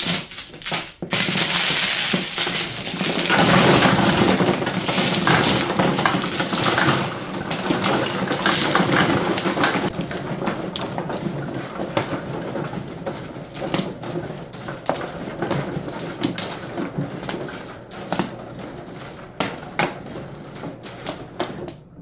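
Mahjong tiles clattering densely as a finished hand is swept into an automatic mahjong table. From about ten seconds in this gives way to separate sharp clicks of tiles being drawn from the fresh walls and set in the players' hands.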